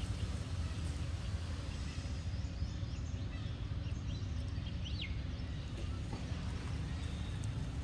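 Outdoor ambience: a steady low rumble with a few faint, short bird chirps around the middle.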